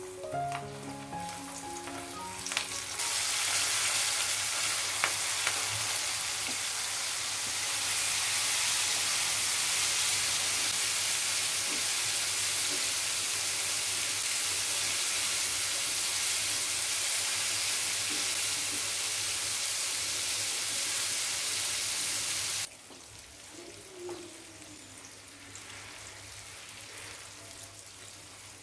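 Flour-battered shrimp deep-frying in hot oil in a wok pan: a loud, even sizzle, stirred with a spatula. About three quarters of the way through, the sizzle drops suddenly to a softer level.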